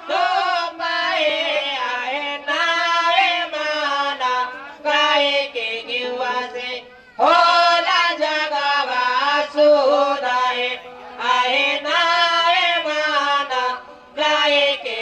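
A solo voice sings a Bhojpuri devotional wedding song through the stage microphone. It moves in phrases a few seconds long with short breaths between them.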